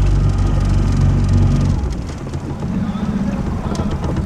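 Small boat's outboard motor running, a steady low hum that drops a little in level and turns rougher about two seconds in.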